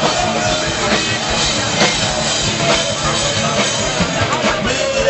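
Rock band playing live, with a steady drum-kit beat about once a second under distorted instruments.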